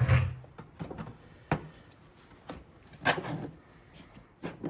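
A 2x4 being set into a Kreg 720 Pro pocket hole jig and positioned for clamping: a series of separate knocks and clunks of wood against the jig. The loudest, with a dull thump, comes right at the start, and further knocks come about a second and a half and three seconds in.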